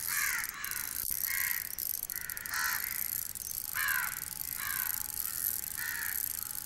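Crows cawing, a run of short harsh caws about one or two a second.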